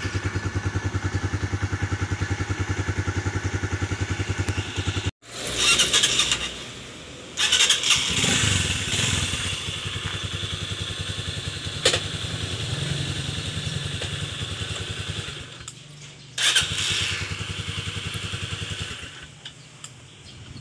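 Skygo Boss 150 motorcycle's air-cooled single-cylinder engine idling with an even beat. After a sudden break about five seconds in, the engine starts again and is revved in a few short bursts, settling to a lower idle in between.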